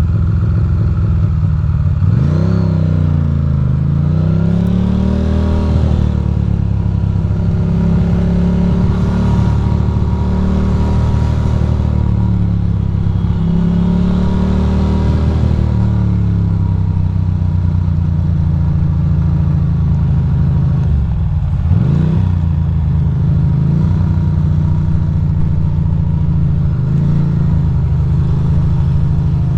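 Ducati Monster's V-twin engine running in city traffic, its pitch rising and falling as the throttle is opened and closed: two longer swells in the first half and a quick rev a little past the middle.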